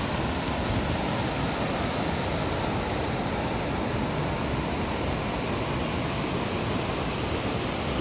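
Steady rushing of Glymur waterfall's falling water, with wind on the microphone.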